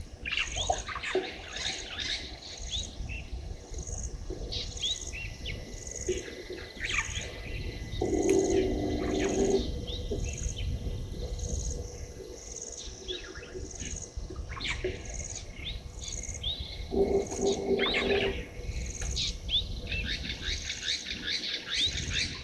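Natural bushveld chorus of wild birds calling, with many short chirps and falling whistles, over a high chirp that repeats evenly about twice a second. A lower, drawn-out animal call of about a second and a half sounds twice, about eight seconds in and again near seventeen seconds.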